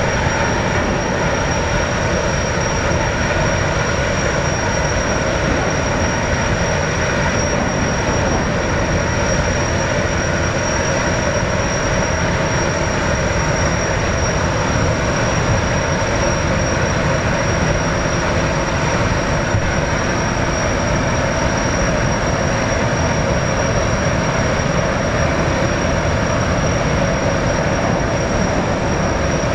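Jetfoil's gas turbines running steadily as the boat moves slowly on its hull through the water: a continuous high whine over a broad rushing noise.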